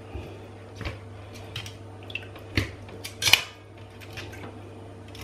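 Metal kitchen tongs clinking against a stainless steel pot three times as chicken pieces are lifted out of the broth, the last clink the loudest. Under it, the steady hum of a kitchen extractor hood.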